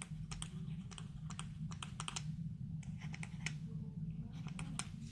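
Pen stylus tip tapping and clicking on a tablet screen while handwriting a word, a quick irregular run of light clicks over a low steady hum.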